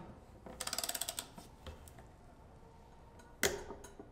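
Ratcheting wrench on a lockring tool tightening a center-lock rotor lockring: a quick run of ratchet clicks near the start, then a single sharp metallic click about three and a half seconds in.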